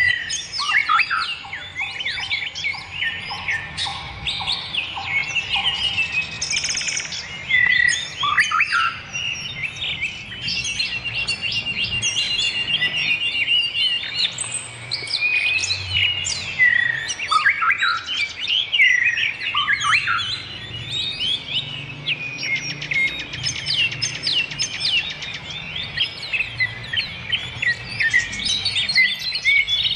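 Songbirds chirping and singing in a dense, unbroken stream of short whistles, chirps and fast trills, the close-packed ('rapat') song used as masteran for training captive songbirds. A quick run of repeated notes sounds around the middle.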